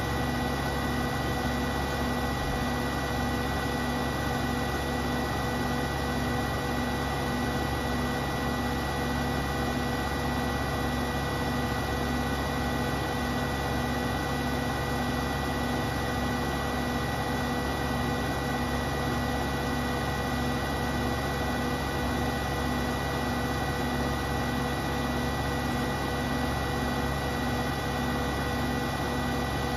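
Beko WTK74011W front-loading washing machine spinning its drum at high speed, the motor and drum making a steady whining hum with a light, regular pulse in it.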